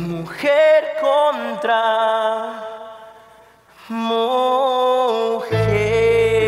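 Live musical-theatre singing: a solo voice sings a long, wavering phrase with almost no accompaniment and fades almost to nothing about three and a half seconds in. A second phrase follows, and the band's backing with bass comes back in near the end.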